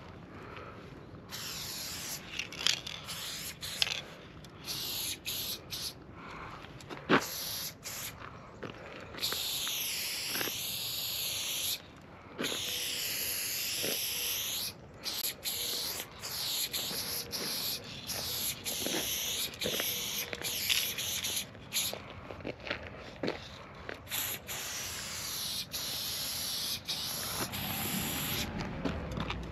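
AKA aerosol spray paint can spraying in repeated strokes, each a high hiss lasting a second to a few seconds and wavering in tone. Short sharp knocks and clicks fall between the strokes, the loudest about seven seconds in.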